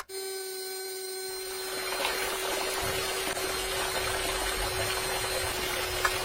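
Small electric water pump running with a steady hum over rushing water, the water growing louder about two seconds in.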